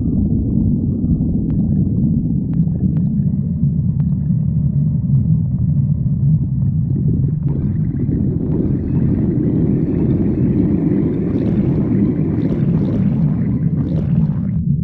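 Stomach growling: a steady low rumble, joined about halfway through by a longer, higher gurgling growl that cuts off sharply near the end.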